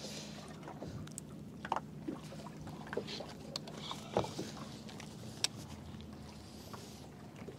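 Spinning rod and reel being baited and cast: a few sharp, light clicks and taps of tackle handling, over a faint steady low hum.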